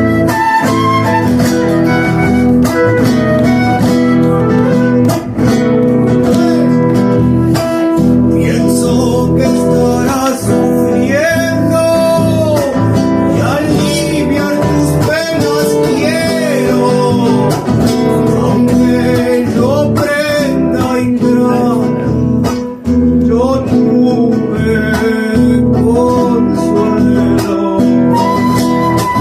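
Live folk music from a small trio: acoustic guitars strumming steadily, with a gliding melody line above them.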